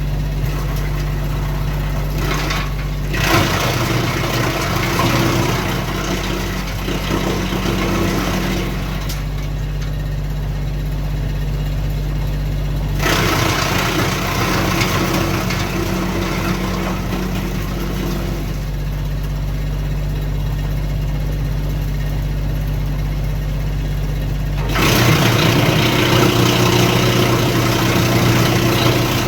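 Kioti CK2610 tractor's three-cylinder diesel running steadily, driving a Titan BX42S three-point PTO wood chipper. Three times, a few seconds in, about 13 seconds in and near the end, a loud rough grinding of branches being chipped rises for five or six seconds while the engine note drops under the load.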